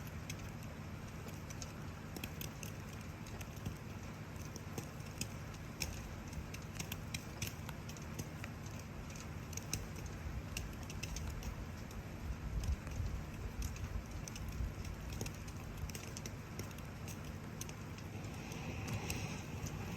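Wood campfire crackling, with frequent sharp pops, over a steady hiss of falling rain and a low rumble. Near the end, a brighter hiss grows louder.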